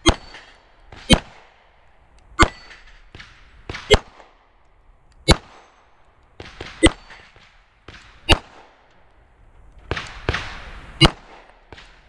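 Beretta 92 9mm pistol fired one-handed (weak hand only) at a steel plate rack. About eight single shots come at a slow, uneven pace, roughly one every one and a half seconds, as the shooter aims each one carefully and misses often.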